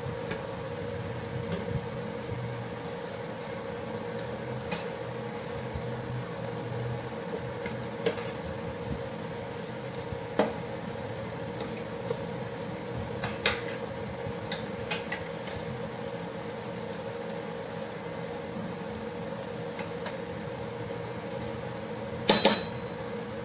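Wooden spoon stirring chicken pieces in a stainless steel pot, with scattered knocks of the spoon against the pot and a louder clatter near the end, over a steady hum.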